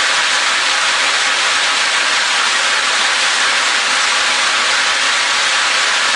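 Steady, even hiss of granular seed pouring continuously off the top of a running vertical screw conveyor and showering back into its hopper, with the rotating casing carrying more seed up the column.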